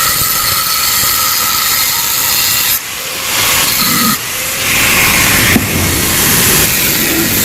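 Power tool, most likely an angle grinder, cutting into the steel shell of a Yamaha RX-King exhaust muffler to split it open, a loud hissing cut. The sound eases briefly about three and four seconds in, then carries on.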